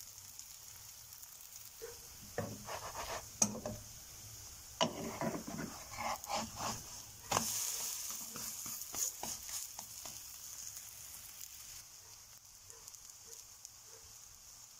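Egg-and-cheese flatbread batter sizzling in a hot oiled nonstick frying pan. In the middle stretch a wooden spatula scrapes and knocks against the pan in a series of sharp strokes, then the sizzle goes on alone.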